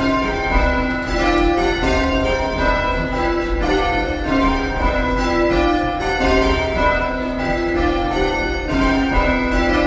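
Church tower bells being change-rung by rope: a steady, rhythmic stream of overlapping bell strikes as the bells sound one after another in rows.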